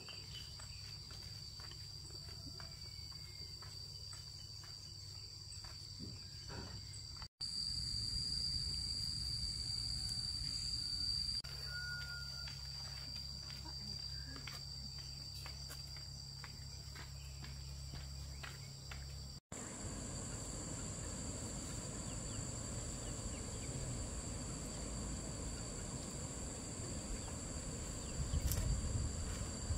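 Steady high-pitched chorus of insects calling over low outdoor background noise. The sound drops out abruptly twice, about 7 and 19 seconds in, and the mix shifts slightly after each break.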